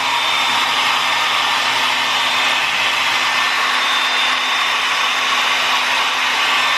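Conair 1875 hand-held hair dryer running steadily on its cool-shot setting: a constant rush of air with a faint steady hum.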